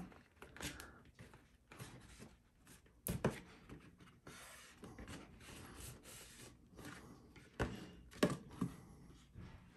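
Faint rubbing and scraping of wrapping paper being pressed by fingers over the top edge and into the inside walls of a glued chipboard box tray, with a few light knocks of the tray against the work surface, one about three seconds in and two more near the end.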